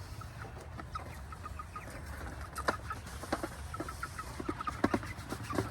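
Flock of young meat chickens (broilers) peeping and clucking with many short, repeated calls, waiting to be fed. A few sharp knocks come through, about two and a half seconds in and again near the end.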